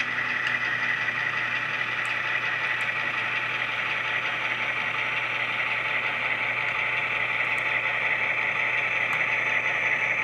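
HO scale model train rolling slowly: the locomotive's electric motor and gearing give a steady whine, with a few faint clicks as the wheels cross the jointed rail.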